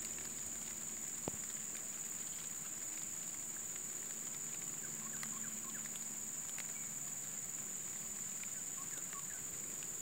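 Outdoor ambience: a steady high-pitched drone, with a few faint short bird chirps in the second half and a single click about a second in.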